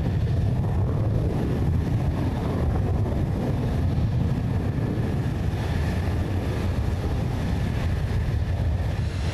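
Jet fighter's turbofan engine running at low taxi power: a deep steady rumble with a faint thin whine held above it.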